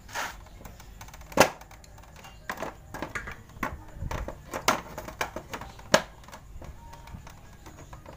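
Pliers and hard plastic clicking and tapping irregularly, about a dozen sharp clicks with two much louder ones, about a second and a half in and six seconds in. A plastic wall plug is being worked into a stripped screw hole in a motorcycle's plastic fairing.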